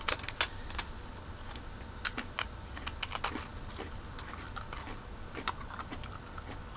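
Crunching of a dry waffle cone being bitten and chewed: irregular sharp crackles, several in quick succession about three seconds in.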